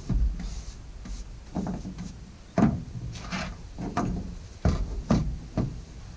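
Irregular knocks and scrapes from working on the opened plastic body of a battery chainsaw, about eight sharp strokes with short rubbing sounds between them.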